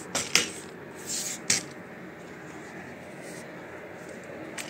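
Handling noises from a Penn Senator reel and rod: two sharp clicks, a short scrape, then another click, all within the first second and a half, followed by a steady faint hiss.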